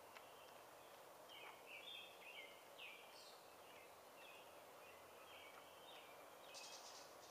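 Faint birdsong: short chirping calls scattered throughout, with a brief higher buzzy call near the end, over a quiet steady outdoor hiss.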